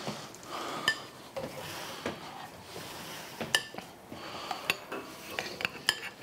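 Forks clinking on plates as people eat and serve food: a series of scattered sharp clinks, several with a brief ring.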